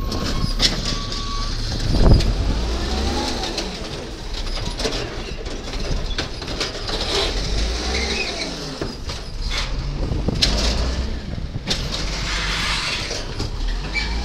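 Automated side-loader garbage truck running, its engine revving up and down several times as it drives the hydraulic arm, with clanks and knocks as the arm grips and lifts a recycling cart; the loudest knock comes about two seconds in.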